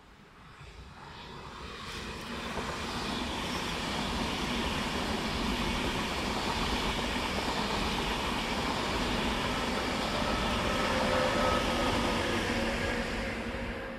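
ÖBB Railjet electric passenger train passing on the track: the rumble and rolling noise of its wheels on the rails builds up as it approaches, stays loud as it runs past close by, and begins to die away near the end, with a couple of steady tones showing late in the pass.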